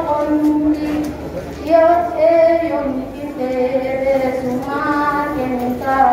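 A young woman's voice chanting a qasida solo and unaccompanied into a handheld microphone, in long drawn-out notes that slide from pitch to pitch.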